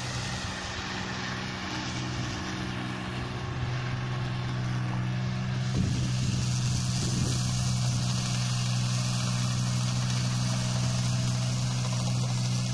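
Hino diesel engine of a John Deere rice harvester running steadily at a low, even speed, getting slightly louder about six seconds in.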